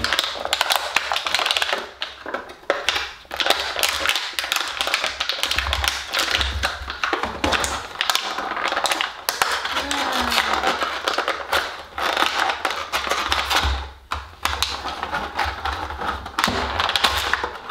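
Clear plastic toy packaging being handled and pulled open: a dense, irregular run of clicks and crackles with occasional knocks.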